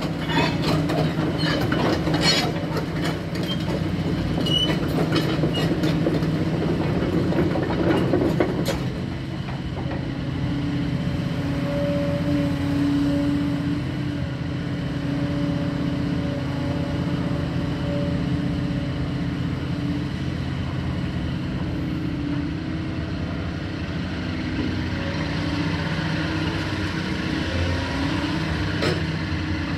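Sumitomo SH220LC-3 excavator's diesel engine running while the machine swings and works its boom and arm. For the first nine seconds it is accompanied by a rapid metallic clanking and rattling, and after that by a steady hydraulic whine, with a single knock near the end.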